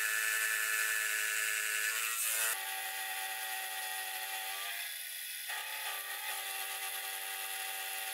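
Sieg X2.7L milling machine's spindle running while its cutter machines a metal block: a steady whine of several tones over a cutting hiss. The pitch and tone change abruptly about two and a half seconds in and again around five seconds, as the cut changes.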